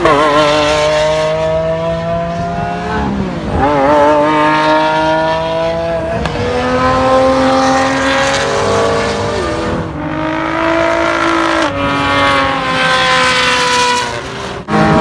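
Supercar engines, a Lamborghini Aventador's V12 among them, revving hard as the cars accelerate along the track. The loud engine note climbs, then steps down abruptly and climbs again several times, as with upshifts under full throttle.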